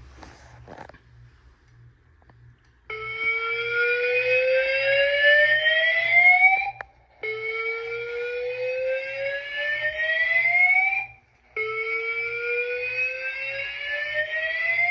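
Fire alarm voice-evacuation speaker sounding the slow whoop alert tone: three rising sweeps of about four seconds each, with short gaps between, starting about three seconds in. A few faint clicks come first, just after the pull station is pulled.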